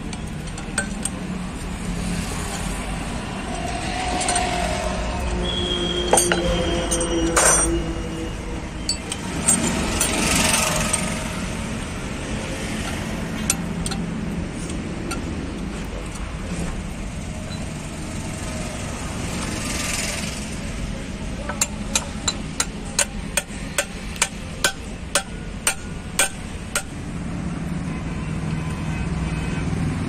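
Metal clinks and knocks as gears and splined parts are worked by hand inside a truck's wheel-hub gear housing, over a steady low hum. Later comes a run of about a dozen sharp metallic taps, roughly two a second.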